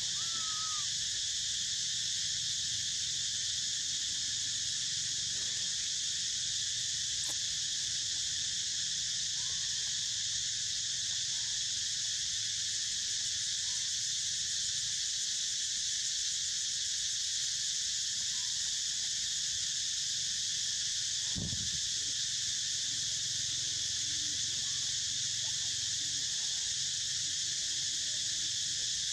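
Steady, dense high-pitched insect chorus, with a few faint short chirps or calls and a soft low thump about two-thirds of the way through.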